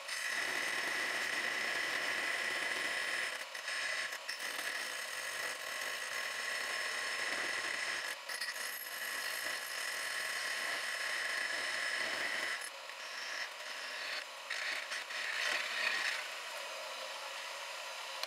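Portable bandsaw running and cutting a slot into a Damascus steel knife tang: a steady whine from the saw with the rasp of the blade biting the steel. The cut briefly lets up a few times, and the sound changes after about twelve seconds as the piece is worked around.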